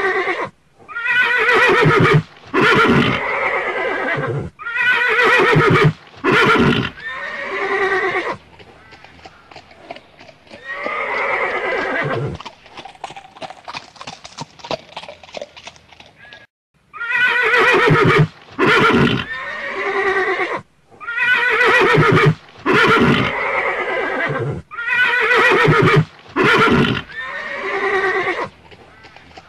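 Horse neighing over and over, long whinnies one after another, with a quieter stretch in the middle where hoofbeats clip-clop.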